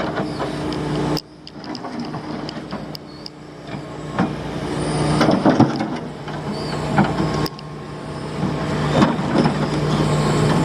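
Heavy diesel engine of construction machinery running steadily, with scattered knocks and clanks over it. The sound drops suddenly about a second in and again about seven seconds in.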